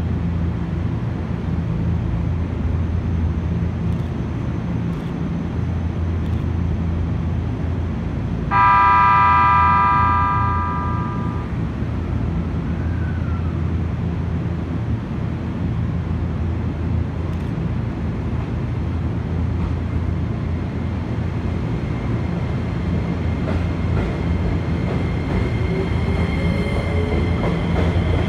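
E257 series electric train standing at a platform over a steady low hum. About eight seconds in, its electric horn sounds one blast of about three seconds. Near the end the train pulls away, its traction motors whining and rising in pitch.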